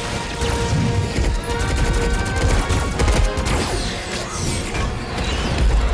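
Orchestral film score under dense battle sound effects: a rapid run of crashes, blasts and booms over a deep rumble.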